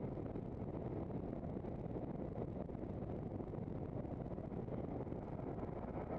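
Steady rushing noise of wind on the microphone mixed with tyre rumble on tarmac as a handcycle rolls along a road, deep and even with no distinct events.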